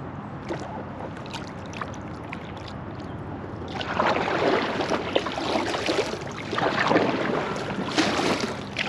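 Water sloshing and splashing around a kayak as it moves, with a few faint clicks at first; it becomes louder and more broken about four seconds in.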